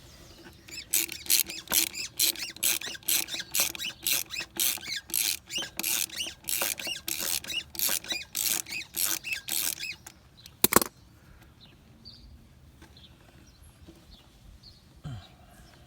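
A ratchet wrench worked back and forth in quick strokes, about two and a half a second, on the rear-wheel hardware of a Harley Sportster. It stops near ten seconds and is followed by a single sharp metal click.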